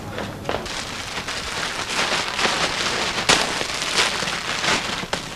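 Plastic-wrapped bags of marshmallows crinkling and rustling as they are grabbed from a shelf and crammed into a plastic carrier bag, a dense crackling with sharper crackles.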